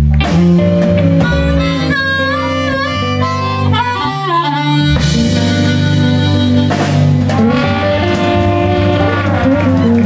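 Live blues band with an amplified harmonica playing the lead, its notes bending and sliding, over electric guitar, bass guitar and drums.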